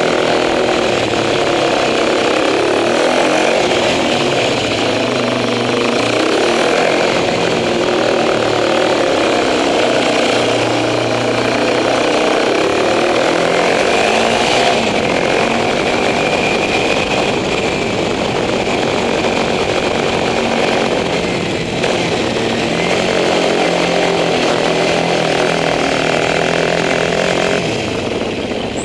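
Motorcycle engine and exhaust running loudly inside a multi-storey car park, its pitch drifting up and down with the throttle, dropping a little near the end.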